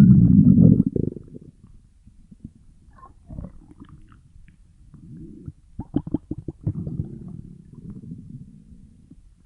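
Stomach growling and gurgling. A loud low rumble comes in the first second, followed by quieter gurgles, then a quick run of gurgling clicks about six seconds in, and a low rumble after it.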